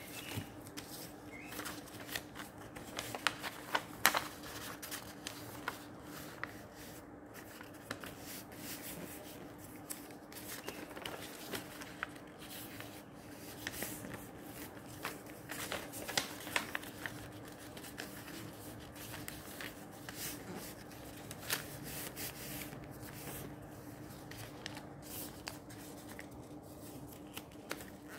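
Paper being folded and creased by hand and slid over a plastic table cover: scattered crisp taps and rustles, sharpest about four seconds in, over a faint steady hum.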